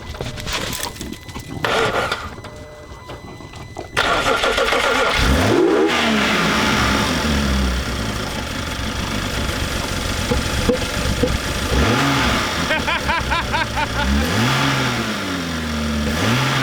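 BMW engine starting: short clicks and knocks, then about four seconds in it cranks, catches and runs loudly. It is revved several times, each rev rising and falling in pitch. The engine is running with its intake pipes disconnected, and the owner says it is kind of misfiring.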